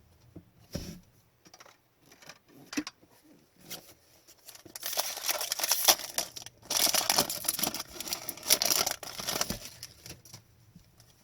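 A plastic trading-card pack wrapper being torn open and crinkled by hand. A few light rustles and clicks come first, then two spells of loud crackling about five and seven seconds in.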